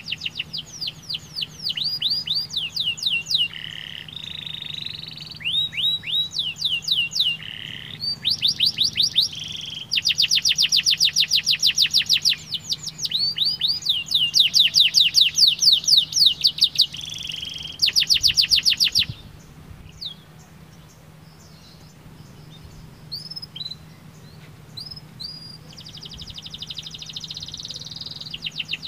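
Domestic canary singing: fast trills of rapidly repeated sweeping notes, each trill held for a second or two before switching to the next. A little past the middle the song thins to a few scattered notes for several seconds, then the trills resume near the end.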